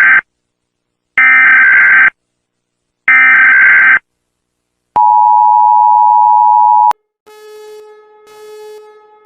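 Emergency Alert System alarm: the end of one SAME header data burst, then two more, each about a second long, followed by the two-tone attention signal held for about two seconds and cut off. A much quieter buzzy tone then starts, swelling and fading about once a second.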